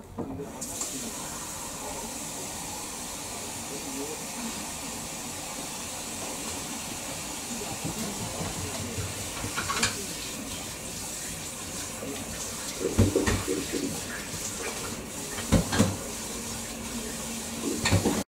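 Kitchen tap running steadily, with a few short knocks and clatters over the running water in the second half.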